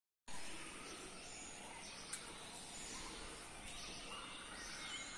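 Outdoor ambience with faint, scattered bird chirps over a steady background hiss, and a single sharp click about two seconds in.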